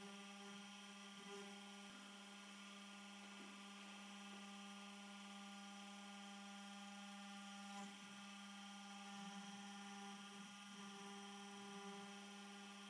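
Carvera Air desktop CNC spindle running steadily as a fine bit carves a resin workpiece on the 4th axis: a faint, steady motor whine with a low hum and several higher tones, swelling slightly now and then as the cut goes on.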